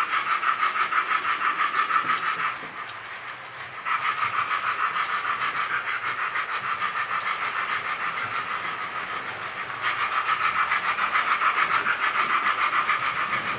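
Digital sound chip of a 00 gauge model steam locomotive, a streamlined A4, playing quick, even exhaust chuffs through its small onboard speaker while it runs. The chuffing drops quieter for about a second and a half after two and a half seconds in, then picks up again and is louder near the end.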